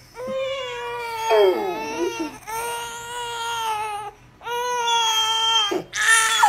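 Infant crying in three long, high wails with short breaks for breath, and a dog beginning to howl along near the end.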